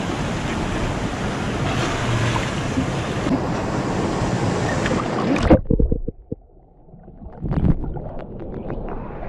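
Steady rush of a mountain river over rocks, with wind on the microphone. It cuts off abruptly about five and a half seconds in, and the rest holds quieter low rumble with a few sharp knocks.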